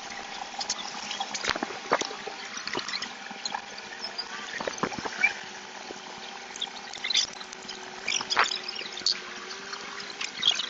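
Scattered clicks, taps and short scrapes of hand tools and metal parts being worked on a commercial door lock, irregular and with no steady rhythm.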